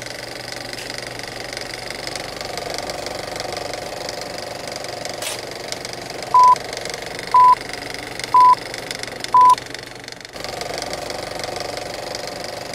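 Film-leader countdown sound effect: a movie projector's steady, rapid clatter, with four short high beeps about a second apart in the middle, the beeps being the loudest sounds. The clatter dips briefly about ten seconds in.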